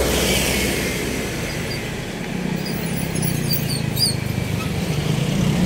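Steady drone of a running motor vehicle engine and road traffic, with a few brief high-pitched squeaks or chirps about three to four seconds in.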